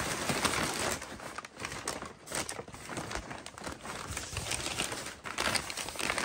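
Crumpled brown kraft packing paper crinkling and rustling as hands pull it out of a cardboard box, with a few short pauses.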